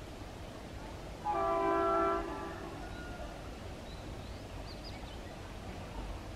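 A diesel locomotive's horn sounding one blast about a second long, from a train not yet in sight down the line.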